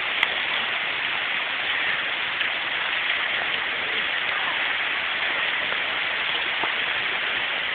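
Large hailstones falling steadily, a dense even hiss of stones striking the ground, with faint scattered ticks and one sharper click just after the start.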